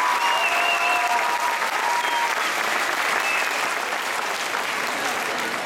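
An audience applauding in a large sports hall, with a few short high calls or whistles over the clapping. The applause slowly dies down.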